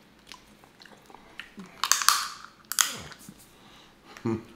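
Snow crab leg shells cracking as they are snapped and pulled apart by hand, with a loud crackling break about two seconds in and a sharp crack just before three seconds, among close-up chewing sounds.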